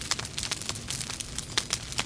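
Wood logs burning in a fireplace, crackling with many quick, irregular pops and snaps over a low rumble of the flames.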